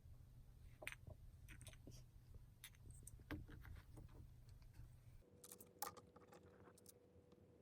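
Near silence: quiet room tone with a few faint clicks and taps. About two-thirds of the way through, a low hum drops away and a faint steady tone carries on.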